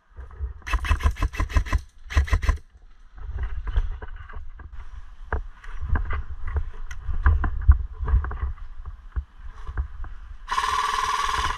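Airsoft electric guns firing full-auto: two short bursts of rapid clicks about a second and two seconds in, then irregular thumps and knocks of movement and gear. Near the end comes one continuous buzzing burst of about a second, which the players call a 'batteuse', an opponent's airsoft LMG.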